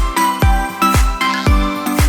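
Upbeat background music with a kick-drum beat about twice a second.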